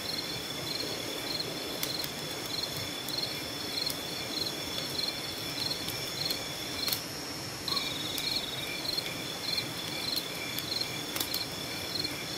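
Night insects, crickets, trilling steadily at a high pitch, with a second insect chirping in even pulses about three times a second. One trill breaks off briefly about seven seconds in and then resumes.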